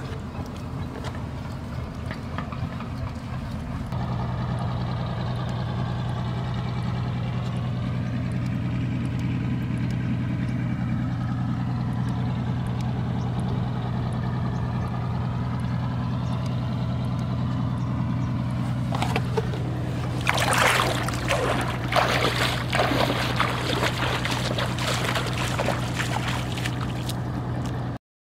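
A steady low engine hum with slowly sweeping, wavering overtones. About two-thirds of the way in, irregular splashes and knocks join it. The sound cuts off abruptly at the end.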